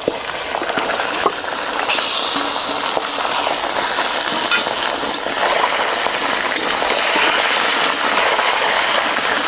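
Raw chicken pieces sizzling as they hit hot mustard oil in a kadai, a steady frying hiss that swells about two seconds in. A few clicks come from a metal spatula turning the pieces in the pan.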